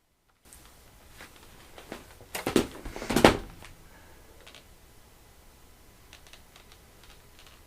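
A few clicks and heavier knocks in a quiet room, the two loudest about two and a half and three and a quarter seconds in.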